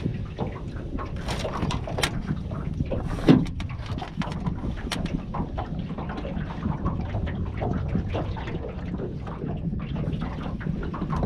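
Wind buffeting the microphone, with scattered knocks, clunks and rattles of gear being handled inside an aluminium dinghy's hull; one louder clunk about three seconds in.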